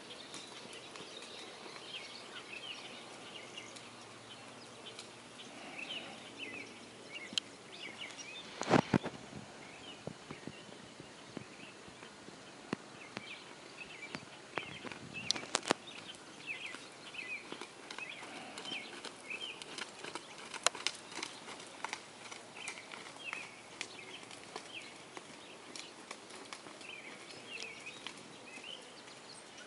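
Outdoor ambience with birds chirping over and over, and the soft footfalls of a horse cantering on a sand arena. A few sharp knocks stand out, the loudest about nine seconds in and others around fifteen and twenty-one seconds.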